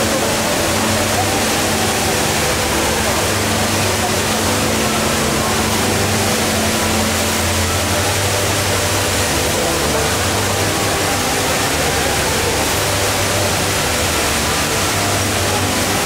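HSBC Rain Vortex indoor waterfall: a tall column of water pouring down into its basin with a steady, loud rushing.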